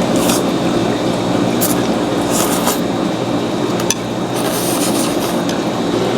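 Close-up eating sounds of a mouthful of shaken beef noodles with onions and bell peppers being chewed, with several short crunchy, wet bursts over a steady background hum.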